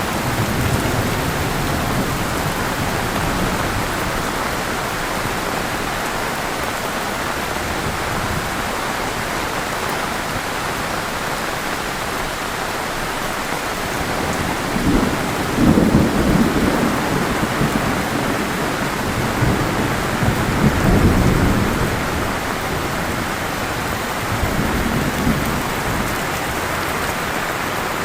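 Heavy rain pouring steadily, with low rolling thunder rumbling several times: faintly near the start, loudest about halfway through, and once more near the end.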